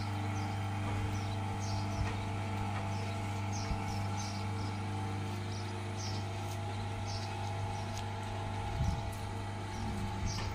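Electric belt-driven potter's wheel running with a steady low hum while wet clay is shaped on it, with a brief knock about nine seconds in. Short high chirps come and go over the hum.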